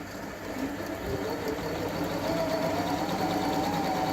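Singer computerized sewing machine starting up and running, stitching a programmed decorative design. It gathers speed over the first couple of seconds, then runs steadily with a motor whine.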